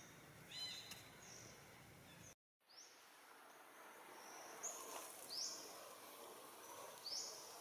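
Faint outdoor ambience with a few short, high bird chirps, several of them quick sweeping calls, scattered through it. The sound drops out briefly about two and a half seconds in.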